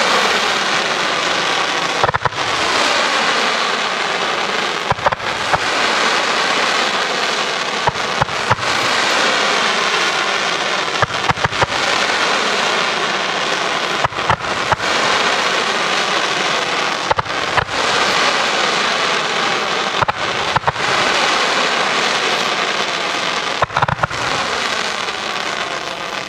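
Fireworks battery firing tailed comets in fans: a continuous loud hissing crackle, punctuated throughout by many sharp launch bangs.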